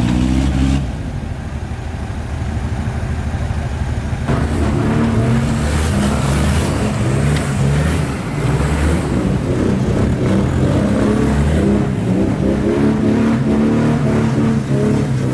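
Off-road 4x4 engines revving as the vehicles crawl through deep mud, the revs rising and falling over and over. About four seconds in, the sound changes abruptly.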